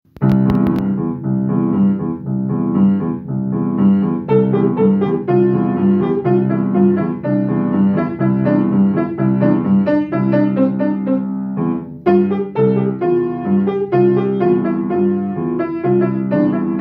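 Mason & Hamlin piano played with both hands: a steady flow of notes from a sonatina, with a short break about twelve seconds in. A few brief clicks right at the start.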